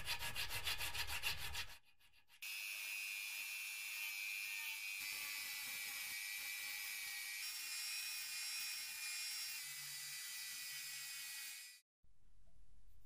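An abrasive tool working a surface in separately cut passes. First comes a rhythmic scraping for about a second and a half. After a short break there is a steady high hiss with a faint whine for about nine seconds, which stops abruptly near the end.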